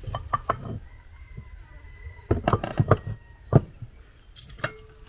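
Chickens clucking, mixed with a handful of sharp knocks, the loudest cluster about two and a half to three and a half seconds in.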